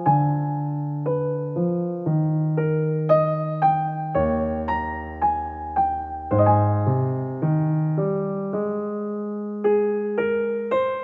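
Background solo piano music: a melody of single struck notes, each fading, over held low bass notes.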